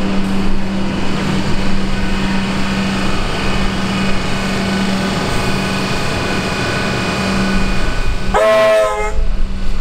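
Comeng electric train's steady electrical hum and whine, with one short horn blast about eight and a half seconds in.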